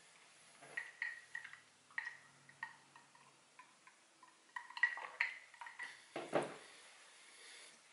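Close-miked eating sounds: chewing with many small, quick mouth clicks, then drinking from a glass about halfway through. A single louder thump follows a little after six seconds.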